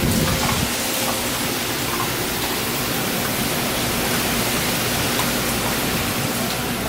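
Hurricane rain and wind: a steady, unbroken rushing hiss.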